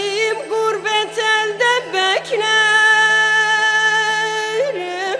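Turkish folk music interlude: a melody instrument plays short ornamented phrases over a steady drone, then holds one long note for about two seconds before dipping back down near the end.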